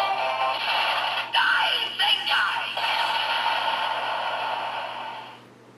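The DX Geartlinger toy morpher plays its electronic finishing-attack sound through its small, thin-sounding speaker: music with a synthesized voice. It stops about five seconds in.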